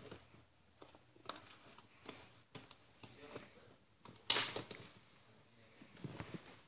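Scattered clinks and taps of a utensil against a mixing bowl, with one louder clink a little past four seconds in.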